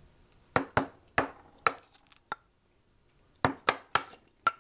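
Round wooden mallet striking a chisel, chopping into mahogany to clear the waste of a wooden hinge's tooth. About nine sharp knocks come in two groups, with a pause of about a second between them.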